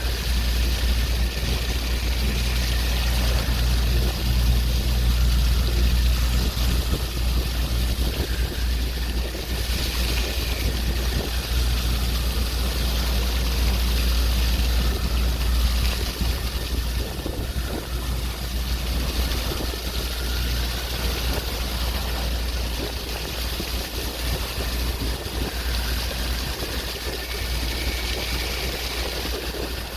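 Waves washing, a noisy wash that swells and eases over several seconds, over a steady low rumble.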